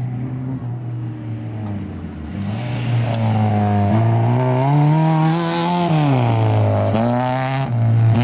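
Classic Lada saloon rally car's four-cylinder engine revving hard on gravel, getting louder as it comes close. The engine note climbs and falls with the throttle and dips sharply about seven seconds in before rising again, with a gritty hiss of loose gravel under the tyres.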